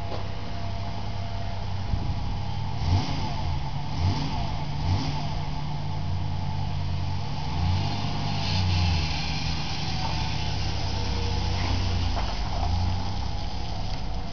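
Car engine running after a stall and restart, its low note swelling a few times as the revs rise.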